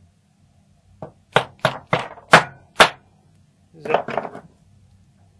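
A small hammer tapping a 0.8 mm steel retaining washer onto the plug of an Ikon lock cylinder to seat it: six sharp taps, then a quick cluster of lighter taps about four seconds in.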